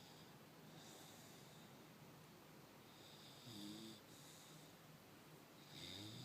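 Bulldog puppy snoring in its sleep: soft, wheezy breaths every second or two, with two louder, short pitched snores about three and a half seconds and six seconds in.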